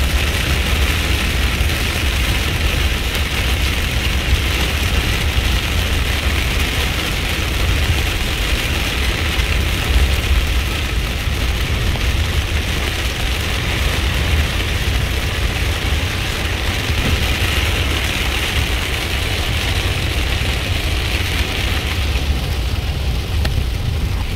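Heavy downpour of rain hitting a moving vehicle's roof and windshield, heard from inside the cabin as a steady hiss over a low engine and road rumble. The rain hiss eases a little near the end.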